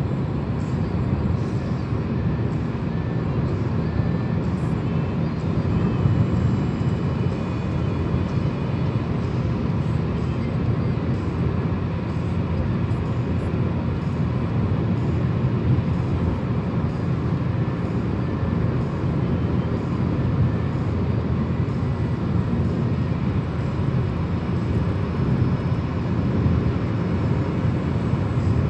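Steady road and engine noise heard inside a moving car's cabin, mostly a low rumble.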